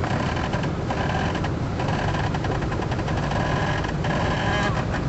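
Jeep engine running steadily while the vehicle works over off-road terrain.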